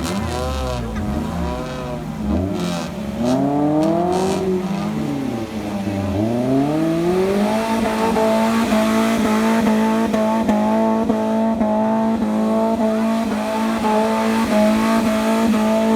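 4x4 off-roader's engine revved up and down several times, then held steady at high revs for about eight seconds, dropping back near the end.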